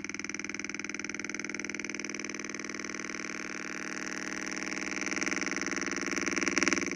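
Electronic buzzing tone from a homemade transistor circuit, played through a loudspeaker with water pooled on its cone. The buzz is rapid and steady. It grows louder from about halfway through, peaks briefly near the end, then eases back.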